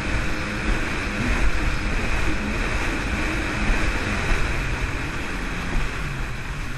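Jet ski running across choppy sea: a steady engine drone mixed with water rushing against the hull and wind buffeting the microphone.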